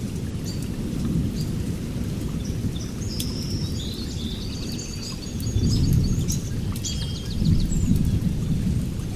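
Rain falling with low rumbling thunder that swells twice in the second half, and short high bird chirps in the middle.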